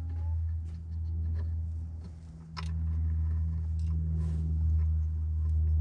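A steady low hum with a few small clicks and taps of metal hardware being handled as the new step motor is bolted up; the sharpest tap comes about two and a half seconds in.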